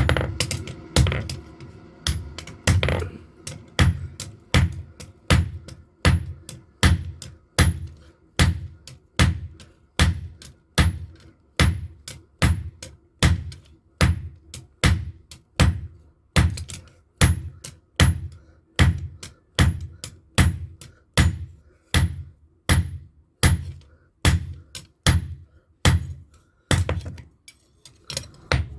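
Hammer blows on a knife blade at an anvil, struck in a steady rhythm of about one a second, each blow a sharp metallic clang with a short ring.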